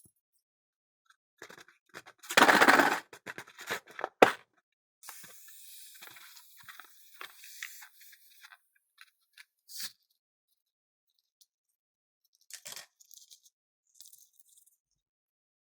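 Close-up scissors snipping and the tearing and crinkling of balloons being cut open, loudest in a burst a couple of seconds in. This is followed by a softer hissing stretch and a few scattered clicks.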